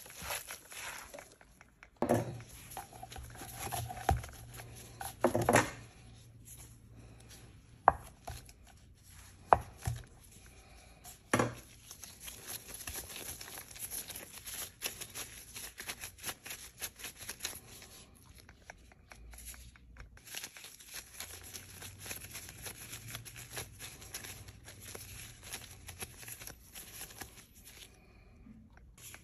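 Hands in thin plastic gloves working food: mixing a minced meat and onion dumpling filling in a pot, then kneading dough on a wooden board. Several sharp knocks fall in the first dozen seconds, and a steady fine crackle follows.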